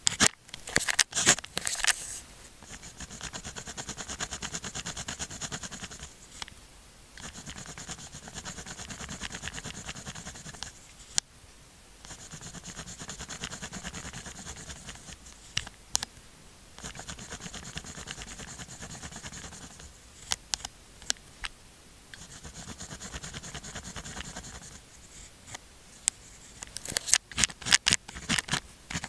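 Pen writing on sticky-note paper: a fine scratchy scraping of the pen tip in stretches of a few seconds each, broken by short pauses and single sharp taps. A quick flurry of clicks and taps comes near the start and again near the end.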